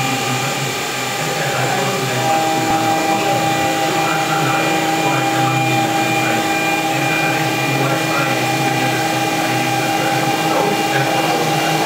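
CNC milling spindle turning a 10 mm high-speed-steel end mill that begins cutting into an aluminium block about two seconds in. A steady whine gains new lower tones and grows a little louder as the cutter takes material, over a steady hiss from the minimum-quantity-lubrication air-oil spray nozzle.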